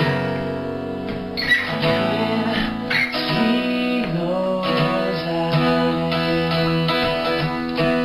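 Acoustic guitar strummed in an instrumental passage of a song.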